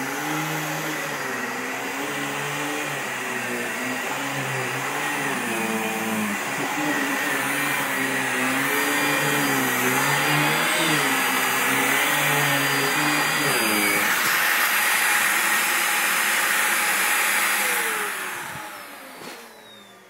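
Dyson upright vacuum cleaner running with its cleaner head on couch upholstery, sucking up dog hair, the pitch of its drone wavering up and down. Near the end it winds down with a falling whine.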